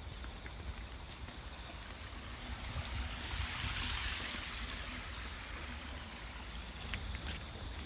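Outdoor wind ambience: a low rumble of wind on the microphone, with a rushing hiss that swells about three seconds in and fades a couple of seconds later.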